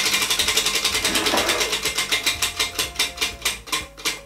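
Tabletop spin-to-win prize wheel spinning, its pointer flicking over the pegs on the rim: rapid ticking that slows steadily as the wheel coasts down and stops just before the end.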